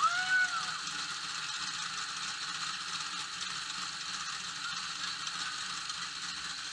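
Trophy truck's engine running steadily at low speed, heard onboard, with a short whoop that rises and falls in pitch at the very start.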